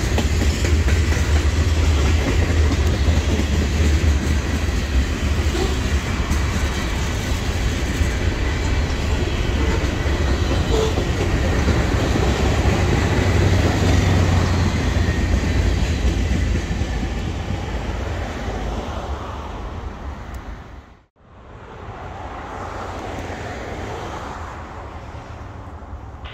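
Freight train cars, covered hoppers and tank cars, rolling past with a loud steady rumble of wheels on rail that fades away as the end of the train goes by. About 21 seconds in the sound cuts out suddenly, and a quieter steady noise follows.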